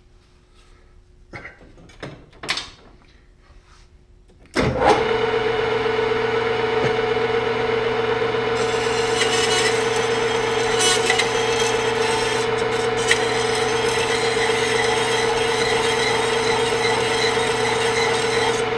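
A few light clicks as the lathe controls are worked, then about four and a half seconds in the metal lathe starts and runs steadily with a constant hum. From about eight and a half seconds a hacksaw blade held against the spinning valve stem adds a hissing scrape as it cuts a narrow groove.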